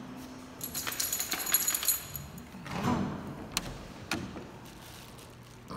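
Small metal pieces jingling for about a second, followed by a rustle and two sharp clicks.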